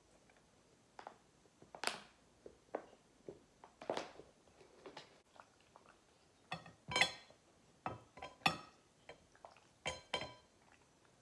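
Metal cutlery clinking and scraping against a pasta bowl in a string of separate clinks. The loudest come in the second half, a few of them ringing briefly.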